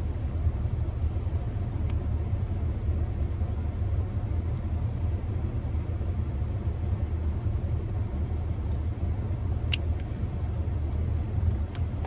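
Steady low rumble of a car heard from inside the cabin, with a couple of faint clicks.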